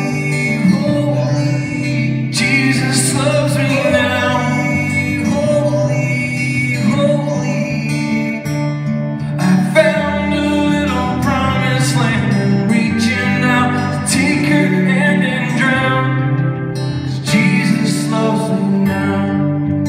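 Live music on acoustic and electric guitars: a song's closing instrumental passage after the last sung line, with steady strummed chords under a moving melodic line.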